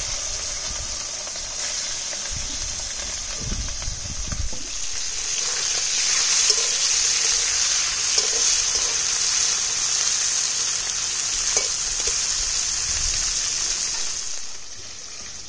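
Small tangra catfish (Mystus tengara) sizzling as they fry in hot oil in a karai: a steady high hiss with a few sharp pops. It dies down near the end.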